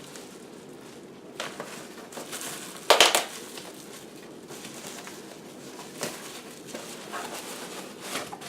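Packaging being handled as a computer power supply is unpacked: crinkling and rustling, with one louder burst about three seconds in.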